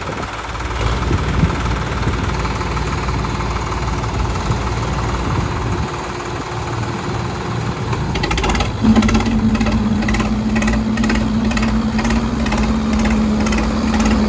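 Tractor diesel engine running steadily, then about nine seconds in getting louder, with a strong steady pitch and an even rhythmic beat over it.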